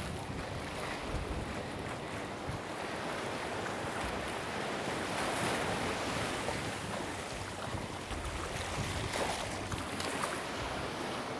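Surf breaking and washing up over the sand, a steady rush of water and foam that swells a little around the middle, with wind buffeting the microphone.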